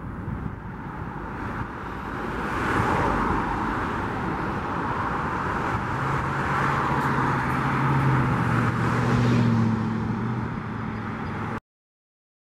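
Road traffic: cars passing close by on a multi-lane street, tyre and engine noise swelling from about two seconds in. A low steady hum joins in the second half, and the sound cuts off abruptly near the end.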